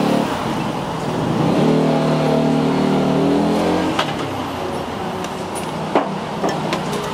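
Street traffic noise, with a vehicle engine running steadily for a couple of seconds early in the stretch. Sharp clinks of a spoon and glassware about four seconds in, and a louder one about six seconds in.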